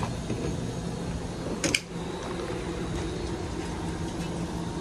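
Steady machine hum, like a fan or air-conditioning unit running, with one sharp click about a second and a half in.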